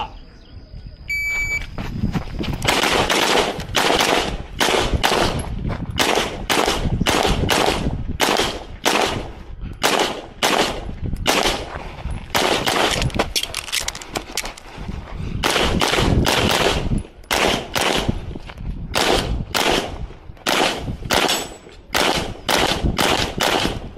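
A shot timer's start beep about a second in, then a long string of 9mm pistol shots from a Beretta 92X Performance, fired in quick pairs and rapid runs with short pauses between them.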